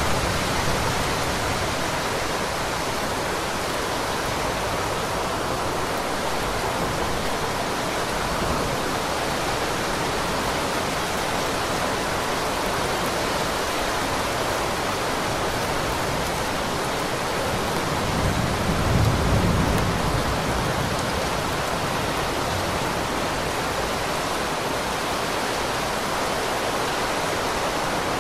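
Heavy rain falling steadily, an even, dense hiss. About two-thirds of the way through, a low rumble swells briefly and fades.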